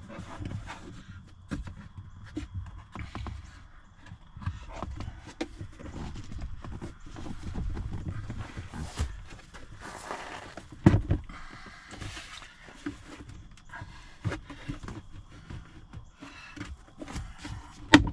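Scattered clicks, knocks and rustles of hands working around plastic under-dash trim panels, over a low handling rumble, with a sharp knock about eleven seconds in and another at the very end.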